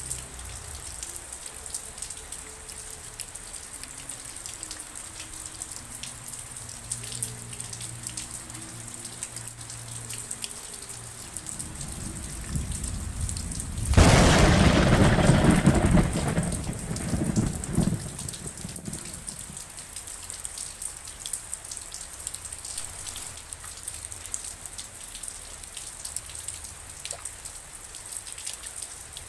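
Steady rain with many small drop hits. About halfway through, a thunderclap breaks in suddenly and rumbles for a few seconds before fading back under the rain.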